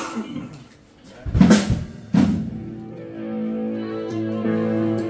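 A band rehearsing: two loud drum hits with cymbal about a second and a half and two seconds in, then a sustained chord that rings on from about three seconds in.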